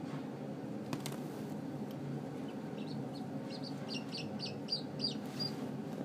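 Newly hatched chick peeping: a quick run of about ten short, high peeps, roughly three a second, starting about three seconds in, over a steady low hum.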